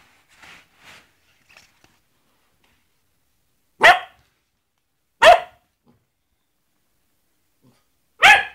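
Young basset hound barking three times, short sharp barks about a second and a half and then three seconds apart, trying to scare off a glove it treats as a threat.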